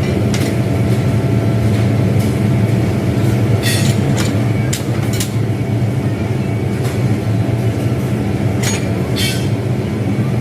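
Factory machinery running with a steady low hum, with occasional sharp metallic clinks and knocks, about eight in all, strongest around the middle.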